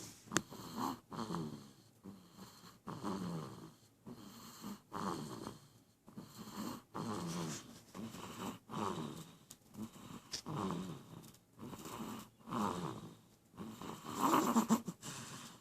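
A baby snoring in sleep, one snoring breath about every two seconds, the loudest near the end.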